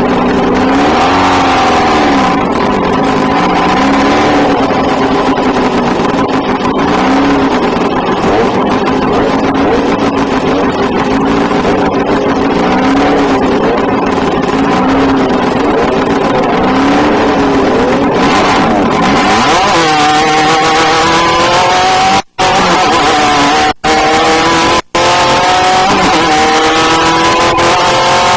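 Off-road desert race vehicle's engine, loud, its revs swinging up and down about every two seconds, then climbing in several rising sweeps through the gears in the last third. The sound cuts out briefly three times near the end.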